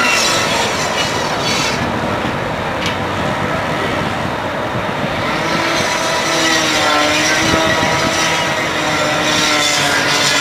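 Loud, steady drone of running motorized fire equipment, with an engine hum that settles and grows stronger from about six seconds in.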